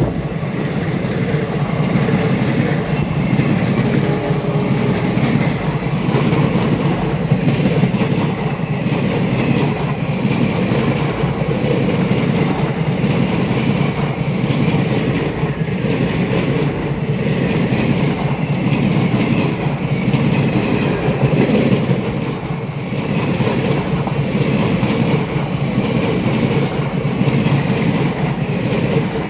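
Kanchanjungha Express passenger coaches passing at speed close by: a loud, steady rumble and clatter of wheels on the rails. The noise starts to fall away at the very end as the last coaches go by.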